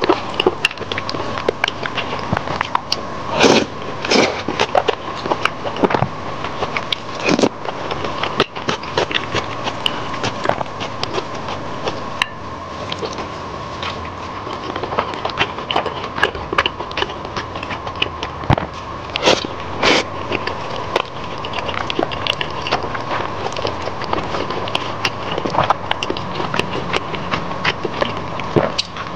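Close-miked chewing and wet mouth sounds of a person eating saucy rice noodles and braised pork, a steady run of small smacks and clicks with a few louder ones now and then.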